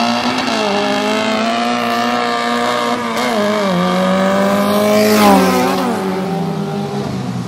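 Two nitrous-fed four-cylinder drag cars, a Honda B20 and a Mitsubishi 2.4 MIVEC, running flat out down the street with a high, steady engine note. The sound is loudest as they pass about five seconds in, and the pitch falls as they go by.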